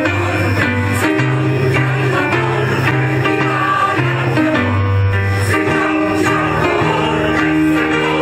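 Choir singing with an instrumental accompaniment; held bass notes move beneath the voices.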